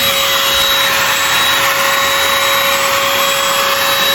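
Oraimo cordless handheld vacuum cleaner running at constant speed: a steady motor whine over the rush of sucked air.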